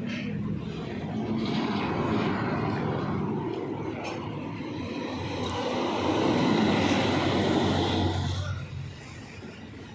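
A vehicle's engine and road noise going past, swelling to its loudest about six to eight seconds in, then falling away sharply shortly before the end.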